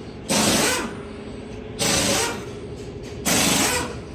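Compressed air hissing in three short bursts, each about half a second long and about a second and a half apart.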